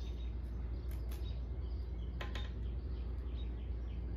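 Steady low background hum, with a brief cluster of light clicks about two seconds in as a new paper cylinder base gasket is worked down over the cylinder studs by hand. Faint bird chirps come through now and then.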